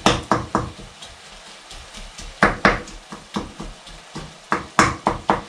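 Wooden spoon chopping and breaking up mince in a frying pan, knocking irregularly on the pan: a quick run of knocks at the start, a pause, then more from about two and a half seconds in. The mince sizzles faintly as it browns.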